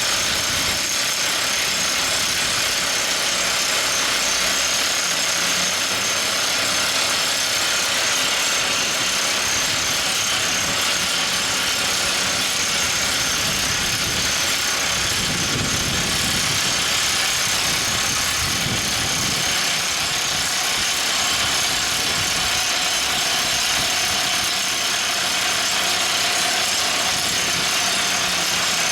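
Everdigm ECD45E top hammer drill rig running, a steady mechanical din with a strong high hiss that holds at one level throughout.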